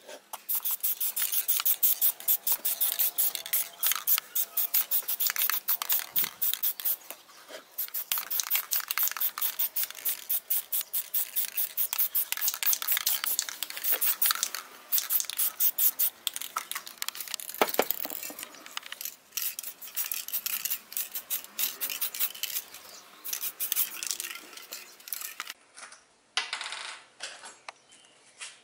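Aerosol spray can being sprayed onto a wooden block in quick, short bursts of hiss, repeated many times.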